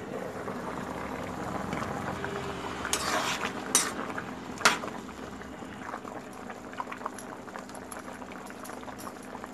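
Vegetable curry boiling vigorously in a pan, a steady bubbling, with three sharp metal clinks near the middle.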